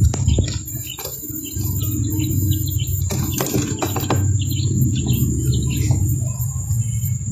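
Quail chick peeping in many short, high chirps, over a loud steady low hum and a thin steady high whine. A few brief clicks come around the middle.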